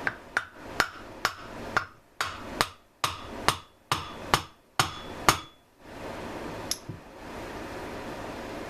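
About a dozen sharp metal-on-metal hammer blows, roughly two a second, some with a short ring, then one more after a pause. The hammer is knocking the flywheel loose from the crankshaft of a small two-stroke hedge trimmer engine.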